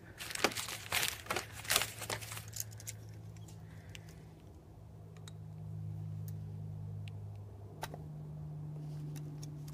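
Metal clicks and crinkly handling noises of a piston ring being worked into its groove on a piston, thickest in the first three seconds with a few scattered ticks after. A steady low hum comes in about halfway and shifts pitch near the end.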